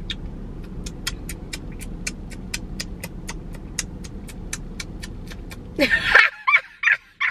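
Rapid, even ticking at about five ticks a second over a steady low hum. Near the end this stops and a short burst of voice follows.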